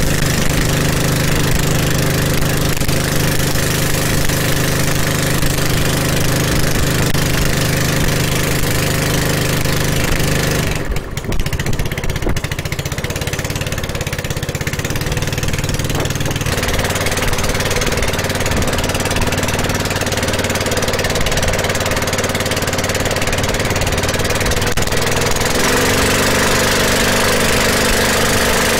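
Small 6.5 HP boat engine running steadily under load, pushing a wooden skiff along at speed, with the hiss of spray and rushing air over it. Its note shifts a few times, dipping briefly about a third of the way in and rising in pitch near the end.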